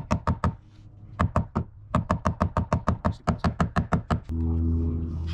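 Rapid, even knocking, about seven strikes a second, in two runs with a short pause about a second in. About four seconds in, a steady low motor hum starts.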